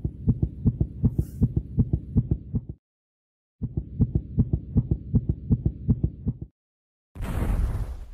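Rapid, muffled low thumping pulses, about six a second, in two runs of about three seconds with a short silent gap between them; near the end comes a short burst of rushing noise.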